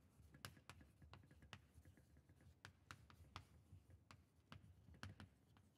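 Faint chalk writing on a blackboard: a string of irregular light ticks and taps as the chalk strikes and drags across the board.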